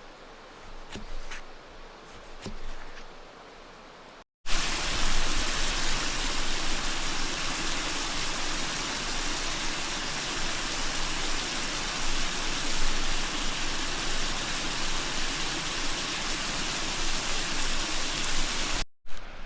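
A few faint scrapes and clicks, then a sudden cut to a fast river rushing past: a steady, even roar of water that ends abruptly just before the end.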